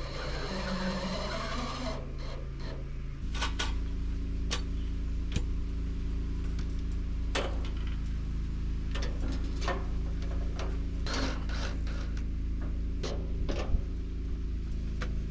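Scattered short clicks and knocks of aluminium pergola C-channel pieces being fitted onto the beams, over a steady low mechanical hum.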